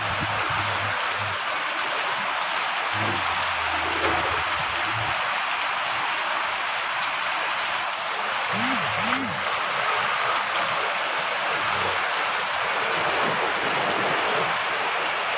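Heavy monsoon rain pouring down steadily, a dense, even hiss of rain falling on roofs and the street.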